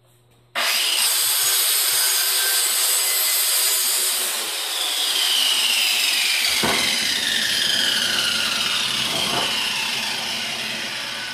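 Power-driven wire brush scrubbing a fresh weld on a steel bell made from a CO2 cylinder, cleaning off weld scale and spatter. It sets in abruptly with a loud, harsh hiss, and a whine falls slowly in pitch in the second half, with two brief knocks.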